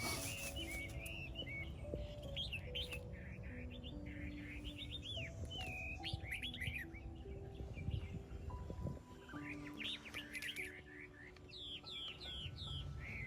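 Birds chirping and twittering over soft background music that plays a slow melody of long held notes, with a low rumble underneath.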